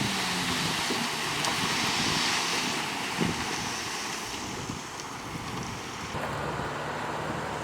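Heavy earthmoving machinery running, a diesel engine drone under a steady hiss of wind on the microphone; the engine hum comes through more clearly about six seconds in.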